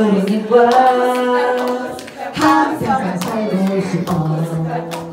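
A group of women singing a cappella, holding long notes, with hand claps keeping time; the lowest voice steps down about four seconds in.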